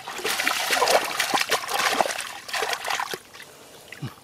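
Splashing and trickling in shallow muddy water, busy and fairly loud for about the first three seconds, then dying down to a few small drips.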